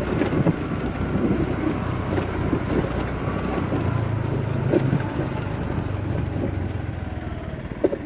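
Motor scooter's engine running steadily while being ridden, with a low hum and road noise.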